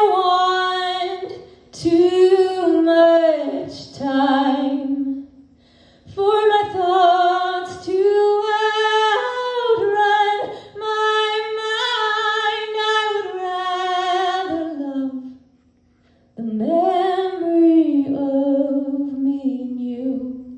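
A woman singing solo a cappella, long held notes in several phrases with short breath pauses between them, the last phrase gliding down at the end.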